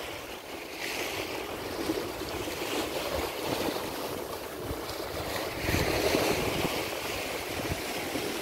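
Sea waves breaking and washing against rocks along the shoreline, swelling louder twice.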